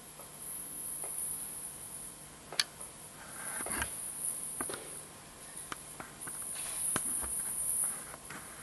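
Live electroacoustic sound from a sound-costume performance: sparse clicks and crackles, one sharper click a little before the middle, over a thin high hiss that swells and fades in stretches.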